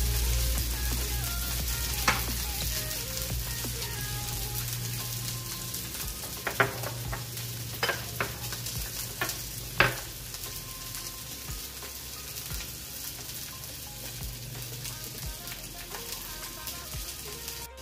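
Salmon fillets sizzling in oil in a nonstick frying pan: a steady crackling hiss that slowly fades, with a few sharp clinks and knocks from about two to ten seconds in.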